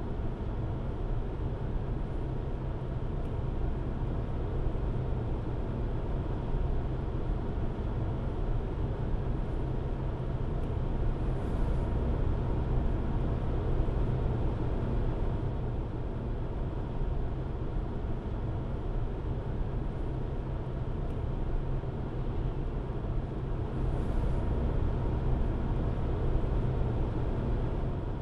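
Steady road and engine rumble heard from inside a moving car's cabin, swelling slightly a couple of times.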